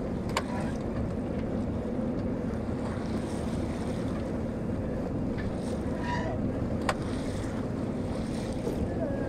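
Wind buffeting the microphone over water washing against a sailboat's hull under way, a steady rushing noise, with two sharp knocks.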